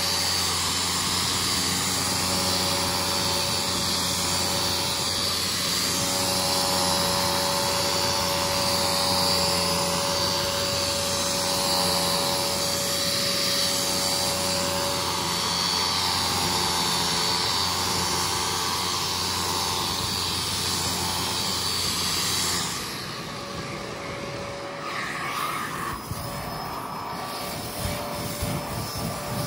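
Kärcher carpet-cleaning wet vacuum running steadily with a high whine. About three-quarters of the way through, the sound drops in level and turns rougher, with scraping as the cleaning works the carpet.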